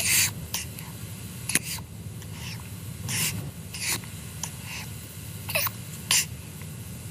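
Short, hissy sucking noises of a baby feeding from a bottle, added as sound effects, coming irregularly about once a second.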